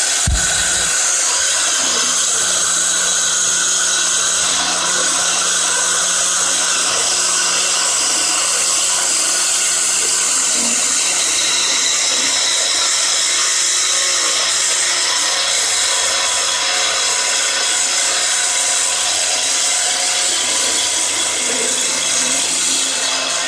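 A power tool running steadily for the whole stretch, a loud, even, hissing whir, with one brief low thump just after it starts.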